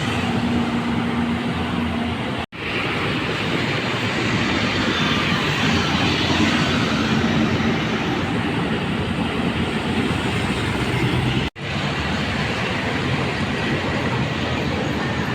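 Continuous rumble and hiss of heavy passing traffic. The sound cuts out abruptly twice, for an instant each time.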